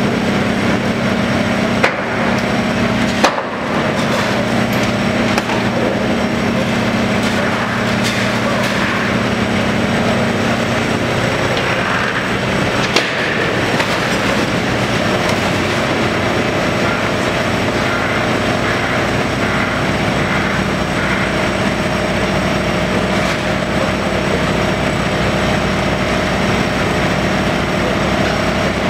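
Hitachi Zaxis 210 tracked excavator's diesel engine running steadily under load, with crunching and clattering as its demolition attachment tears at a building's walls and roof. A few sharp knocks stand out, the loudest about three seconds in.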